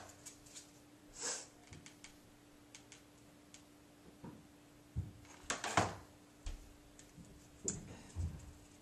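Handling noises from hot-gluing foam pipe insulation: scattered light clicks, taps and rustles from a hot glue gun and the foam. A few louder knocks fall about a second in and between five and six seconds in.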